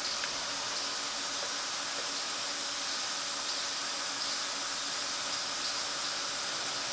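Steady high hiss of machine-shop background noise.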